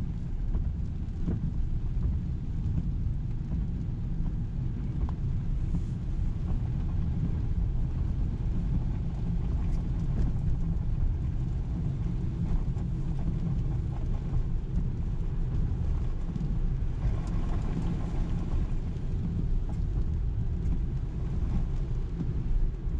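Road noise inside a moving car on a wet road: a steady low rumble of tyres and engine, with scattered faint ticks. Near the end there is a louder swish of spray as an oncoming car passes.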